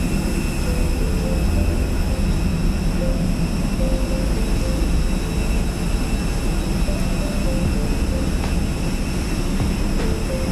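Jet airliner noise: a steady, really loud engine and air noise with faint high whining tones held throughout.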